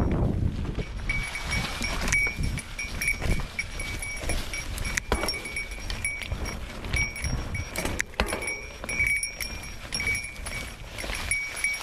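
A small bell ringing again and again, jangled as the mountain bike rolls over rough trail, over the low rumble and knocks of the bike on the ground.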